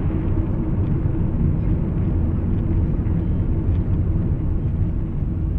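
Steady low rumble of a moving car, engine and road noise heard from inside the cabin through a dashboard camera's microphone.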